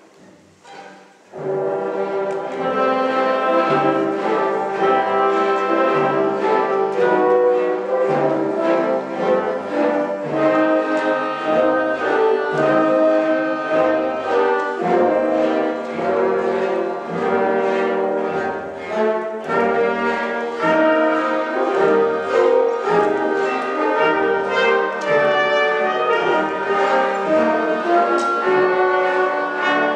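Symphony orchestra playing, with brass to the fore. It comes in about a second in, after a brief pause.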